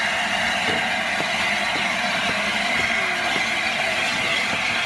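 LNER A4 Pacific steam locomotive 60009 standing with steam escaping, a loud, steady hiss.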